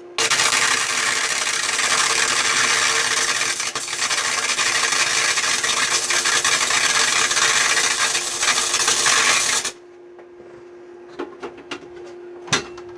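Flux-core wire welder (Century FC90) laying a test bead with the wire feed turned up to about 6: a steady loud arc crackle that starts abruptly and cuts off about ten seconds later. After it come a few sharp clicks over a steady hum.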